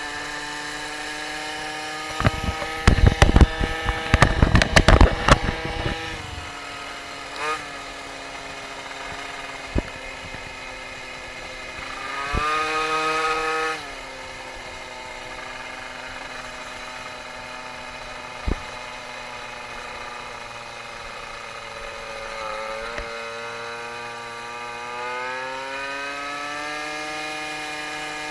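Tuned MBK 51 two-stroke moped engine running under way as the bike is road-tested after carburettor adjustments. The pitch holds fairly level, jumps up sharply for about a second and a half roughly halfway through, then drops back and climbs slowly again near the end as the bike accelerates. Loud knocks and rumble on the camera fill a few seconds near the start, with single knocks later.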